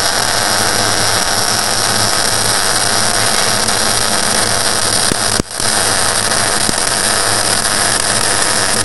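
Electric arc welding: a steady, loud hiss and crackle of the welding arc, which stops for an instant about five and a half seconds in and then strikes up again.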